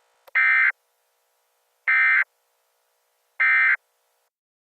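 Three short bursts of Emergency Alert System digital data tones (the SAME end-of-message signal), each a raspy electronic squawk about a third of a second long, about a second and a half apart.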